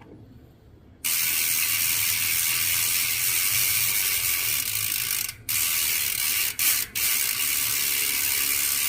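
ZTTO P3 rear hub's freehub buzzing loudly as the wheel coasts, the pawls ratcheting so fast the clicks merge into one steady buzz. It starts about a second in and stops briefly three times in the second half.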